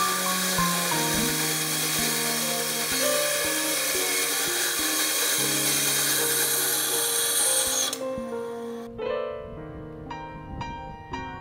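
A small bench power saw with a narrow vertical blade cutting off brass pins that stick out of a wooden knife handle, a steady high hiss that stops abruptly about eight seconds in. Background music plays throughout.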